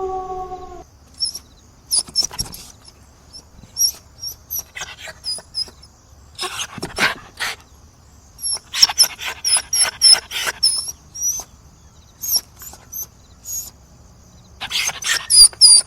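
A dog's howl trailing off in the first second, then a dog whimpering in short, high-pitched squeaks and yelps that come in irregular clusters.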